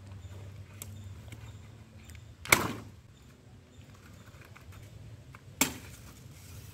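A large knife chopping through palm-leaf stalks: two sharp cuts about three seconds apart, the first one louder.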